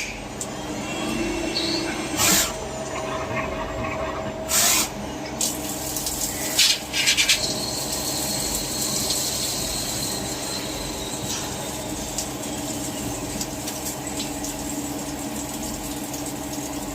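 CNC machine running with a steady hum made of several fixed tones. Short loud hisses come twice, about two and five seconds in, and a quick run of clicks comes around seven seconds. A high steady whine starts soon after and stops about eleven seconds in.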